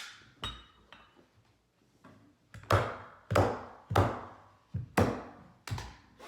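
Staple gun firing staples through a carpet runner into a stair: a quick run of about eight sharp shots, the loudest five coming one after another about every two-thirds of a second in the second half.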